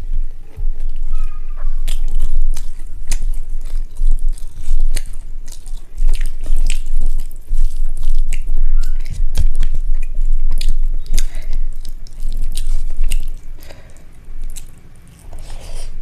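Close-miked chewing and mouth sounds of someone eating rice and egg curry: many wet clicks and smacks over a low rumble of jaw movement.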